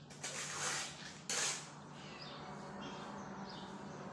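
Two rough scrapes of a hand tool through cement mortar in a basin, the first longer than the second, with faint bird chirps in the background.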